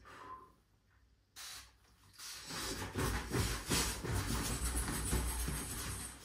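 Handheld spray bottle misting the hair: two short faint spritzes, then from about two seconds in a longer stretch of hissing spray mixed with rustling of a plastic barber cape.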